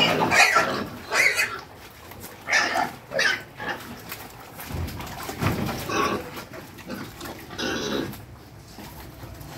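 Several young pigs squealing in repeated short, loud cries as they crowd the feed trough, crying for food. The squeals come in bursts every second or so and thin out and grow quieter over the last couple of seconds.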